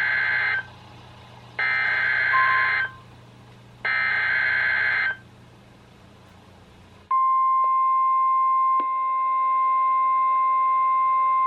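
Three bursts of EAS/SAME digital header data from a NOAA Weather Radio broadcast, each a warbling two-tone data screech about a second long, announcing a new severe thunderstorm warning. About seven seconds in, the steady 1050 Hz weather-radio warning alarm tone starts and holds, and fainter steady tones join it a couple of seconds later.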